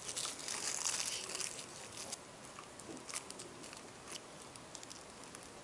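Parchment paper crinkling and rustling under the fingers as twine is wound and tied around it over a glass jar's mouth, strongest in the first second and a half, then light scattered ticks and rustles.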